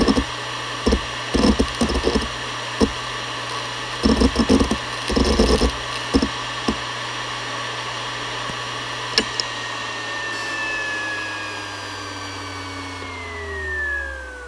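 Seagate Barracuda ES.2 ST31000340NS hard drive spinning with a steady whine, its heads seeking in bursts of rapid clicks and chatter for the first several seconds. A single click comes about nine seconds in, then the whine falls steadily in pitch as the platters spin down.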